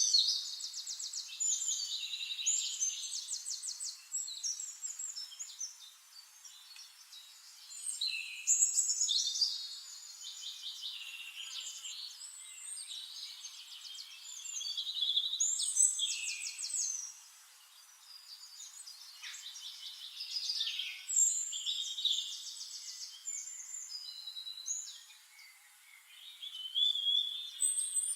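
Several birds singing, with overlapping rapid trilling songs coming in phrases every few seconds.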